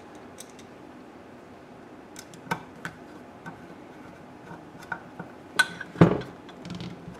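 Scattered light metal clicks and taps of a screwdriver and small Phillips screws against a motorcycle stator's generator cover as a wire-guide screw is set and driven in, the loudest knocks about six seconds in.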